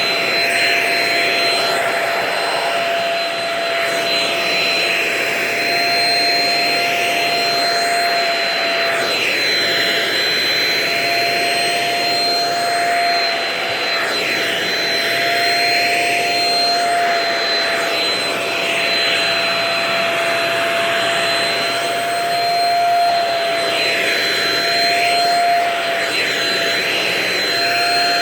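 Vacuum cleaner running steadily on a couch, a high motor whine over rushing air whose tone sweeps up and down every few seconds as the nozzle is moved over the upholstery.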